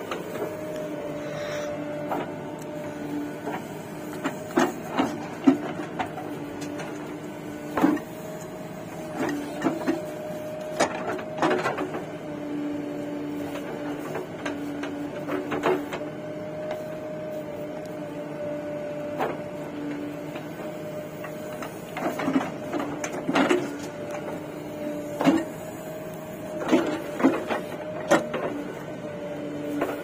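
JCB 3DX backhoe loader working, its diesel engine and hydraulics giving a steady humming whine, with scattered knocks and clatters every few seconds.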